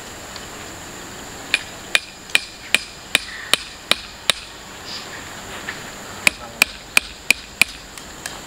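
Hammer blows: a run of about eight sharp strikes a couple of seconds in, a pause, then five more, each about a third of a second apart. A steady high insect drone runs underneath.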